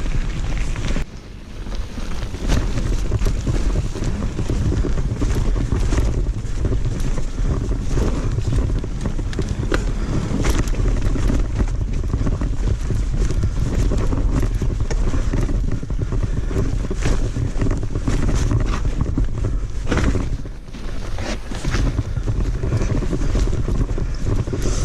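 Mountain bike riding a rough trail, heard through a body-mounted action camera: wind buffeting the microphone over a steady rumble, with frequent rattles and knocks from the bike over roots and stones.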